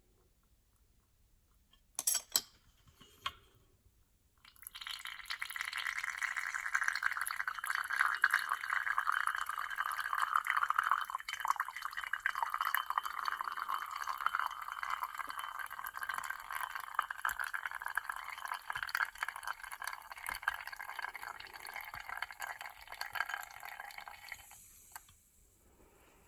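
Espresso streaming and dripping from a Flair manual lever espresso maker into a cup, a steady trickle lasting about twenty seconds before fading out. A few sharp clicks come shortly before the flow starts.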